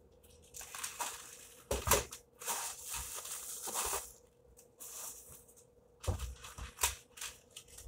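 Clear plastic packaging crinkling as it is handled, with a few sharp knocks as plastic-roadbed model railroad switch track pieces are set down on a wooden board, twice near the end.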